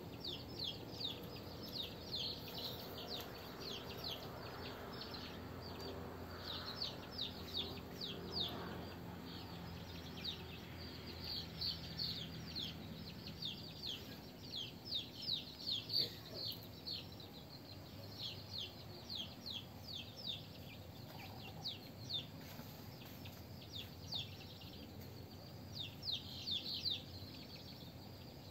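Chicks peeping over and over in quick clusters of short, high, falling peeps, as a brood calls while going up to roost in a tree after the hen.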